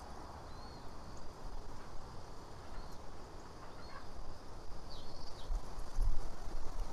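Faint, short, high bird chirps now and then over quiet outdoor background noise, with a low wind rumble on the microphone building up near the end.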